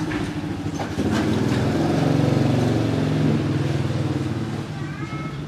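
A motor vehicle engine running, growing louder about a second in and then fading away, with a few sharp clicks near the start.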